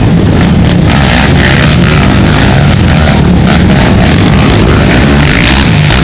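Racing ATV engines running hard at high revs, loud enough to overload and distort the recording.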